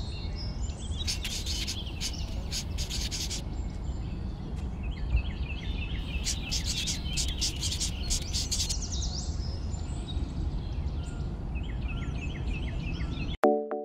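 Outdoor ambience of birds calling: runs of short, repeated chirps and rapid chattering calls over a steady low rumble. Near the end it cuts off suddenly and music with a regular beat comes in.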